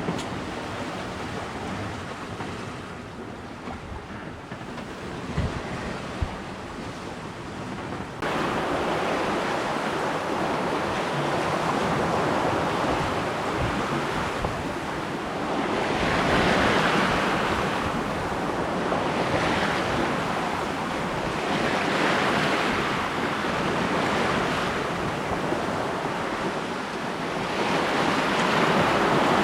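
Waves rushing and splashing past a sailboat's hull under way, with wind buffeting the microphone. Two short knocks come a few seconds in. The sound then jumps abruptly louder about eight seconds in and swells with each passing wave, every two to three seconds.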